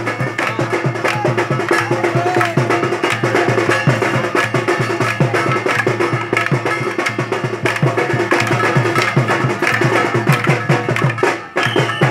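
Fast, steady percussion with sharp wooden clacks, as bamboo lathis strike together in stick fighting. It breaks off briefly near the end.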